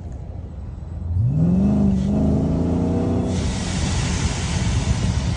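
Hellcat-swapped supercharged V8 in a car with its exhaust valves closed, running low and then accelerating about a second in, its note rising and holding. From a little past the middle, a steady rushing hiss joins it.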